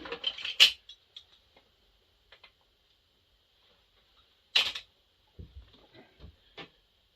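Scattered clicks and light knocks of chainsaw parts and tools being handled on a workbench, the sharpest about half a second in and again at about four and a half seconds.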